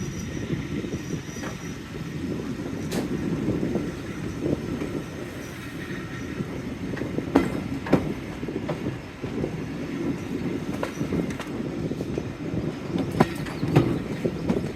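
A train hauled by Class 45 diesel 45108 running along the track: a steady low rumble with several sharp knocks from the wheels and rail, the clearest about halfway through and twice near the end.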